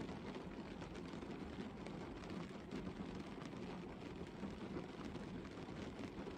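Gentle rain falling steadily on a car's bonnet and body, heard from inside the parked car as an even patter of many small drops.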